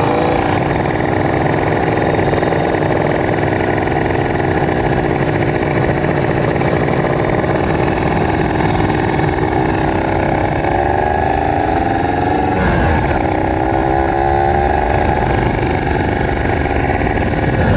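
Kawasaki Ninja RR 150's single-cylinder two-stroke engine running as the bike rides off, with wind noise over the microphone. Past the middle the revs climb, drop sharply at a gear change about two-thirds of the way in, climb again and then ease off.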